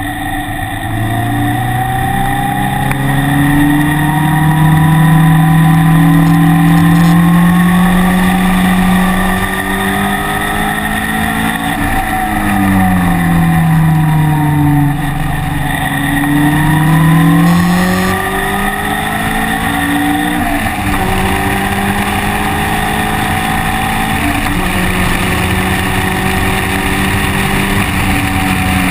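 Onboard engine sound of a vehicle on track. The engine note climbs under acceleration, drops for a few seconds about halfway through as it slows, climbs again, then holds fairly steady near the end.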